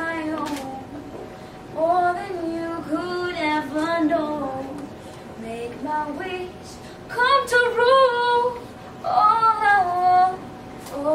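A girl singing solo, phrase by phrase with short pauses between them.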